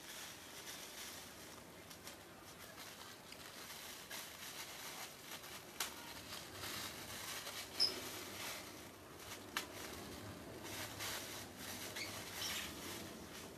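Thin black plastic bag rustling and crinkling as it is handled and cut up with scissors, with a few sharp clicks.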